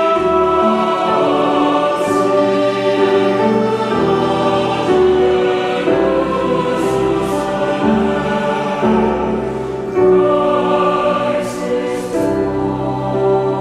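Choir singing a Christmas carol in slow, held chords that change about every second or two.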